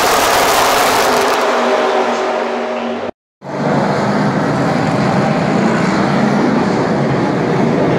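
Race cars running at speed on the track, their engines making a loud, continuous din. The sound drops out for a split second about three seconds in, then a steadier, lower engine noise carries on.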